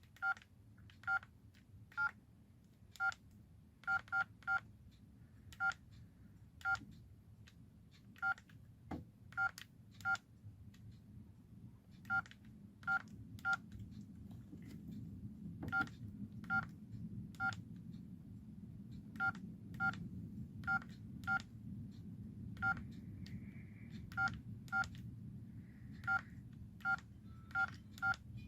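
An LG V111 mobile phone's keypad tones: a short two-note beep with each key press, about thirty presses at uneven intervals, all at the same pitch.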